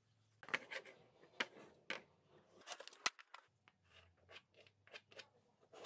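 Stiff cardboard tube pieces handled, scraping and clicking against each other and the board, then a pencil scratching short marks on cardboard in the second half.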